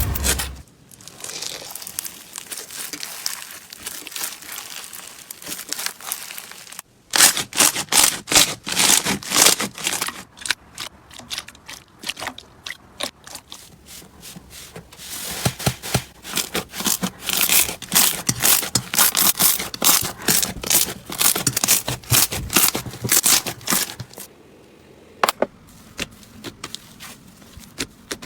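Slime being squeezed and pressed by hand, first a soft sticky rustle, then from about seven seconds in a long run of dense crackles and pops that dies down near the end.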